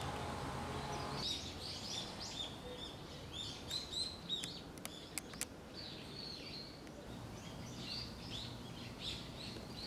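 Small birds chirping in quick, short, high calls, on and off throughout. A low steady hum stops about a second in, and a few sharp clicks come near the middle.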